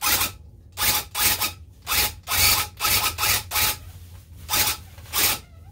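Handheld electric tufting gun punching red yarn into backing cloth, run in about ten short bursts with brief pauses between, giving a rasping buzz each time the trigger is pulled as it follows tight curves of lettering.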